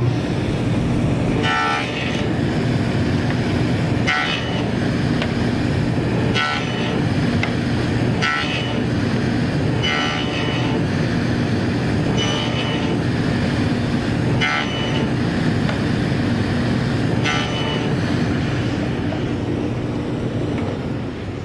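Table saw with a dado blade running steadily, making a series of short cuts in wooden stock about every two seconds; each cut adds a brief higher whine over the steady hum of the motor.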